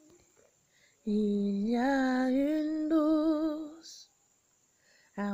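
A solo woman's voice singing a slow, long-held phrase that slides up in pitch and wavers with vibrato, then stops; a new sung phrase begins near the end.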